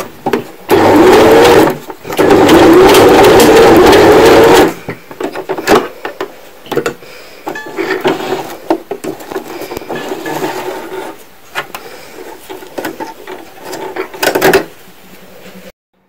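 Electric sewing machine stitching in two runs, one of about a second and then a longer one of about two seconds, its motor pitch wavering up and down. Then quieter clicks and rustles of the machine and fabric being handled, with one more brief loud burst near the end.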